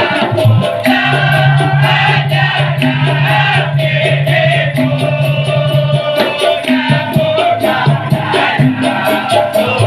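Dikir barat music: a group of voices singing together over percussion with a fast, steady shaking of maracas. A low tone is held for several seconds in the first half.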